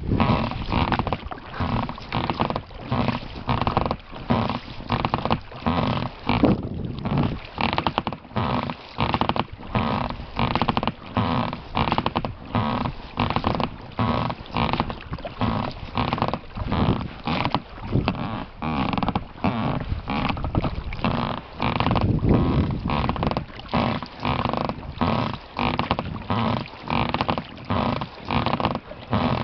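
Inflatable boat being rowed: the oars creak in their oarlocks and splash the water in a steady rhythm of repeated strokes.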